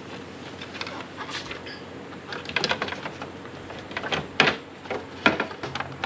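Hard plastic grille parts clicking and knocking together as a silver grille surround is set onto a Toyota Tundra TRD Pro-style grille insert: scattered light taps, with a few louder knocks in the second half.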